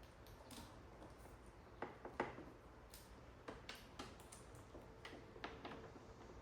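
Faint, irregular clicks and taps, about a dozen, the loudest about two seconds in, from battery cables and terminal hardware being handled while the batteries are wired up.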